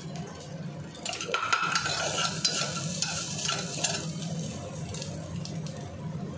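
Mutton curry sizzling in an aluminium kadai as it is stirred and scraped with a metal spatula from about a second in, with a few clinks as a glass lid is put on the pan. A steady low hum runs underneath.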